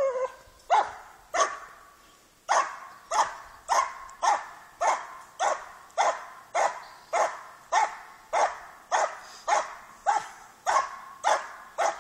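A dog barking over and over in a steady rhythm, about one and a half short sharp barks a second.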